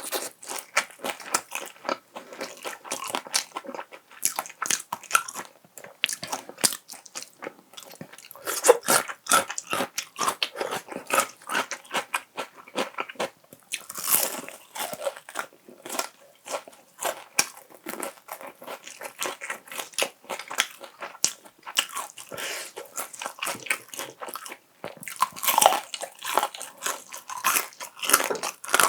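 Close-miked biting and chewing of crispy fried chicken (Kyochon Honey Combo): dense, irregular crunching and crackling of the fried coating with each bite and chew.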